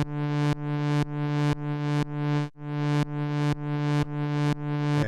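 Modular synthesizer drone pumped in volume, a fake sidechain effect made by voltage control through the AI028 matrix mixer's VCAs. It swells up and cuts off about twice a second, its brightness returning with each swell.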